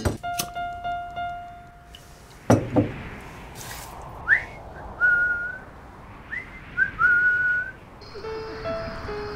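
Two whistled notes, each sweeping sharply up and then held steady, over soft piano score. A dull thud comes about two and a half seconds in.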